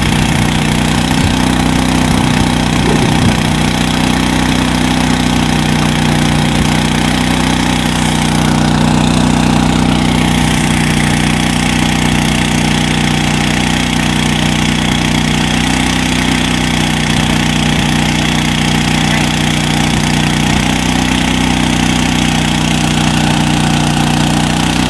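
A small engine running steadily at an even speed, an unchanging low hum.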